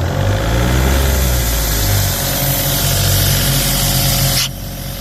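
Isuzu three-cylinder diesel of an Airman PDS90S portable air compressor running just after a start with the air valve closed, its speed wavering for the first couple of seconds before it settles. A loud hiss over the engine cuts off sharply about four and a half seconds in.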